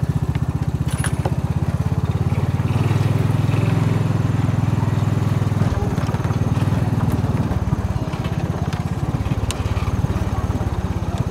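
A small vehicle's engine running steadily with a low, rapid pulsing while it is driven over leaf-covered ground.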